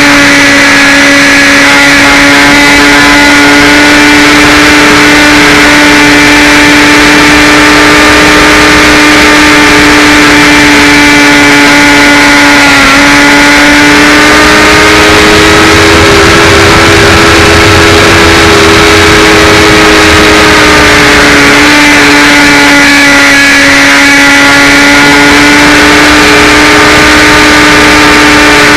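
The HawkSky RC glider's electric motor and propeller run steadily with a loud, even whine over a rushing noise. The pitch dips briefly about halfway through, rises a little, then settles back lower as the throttle changes.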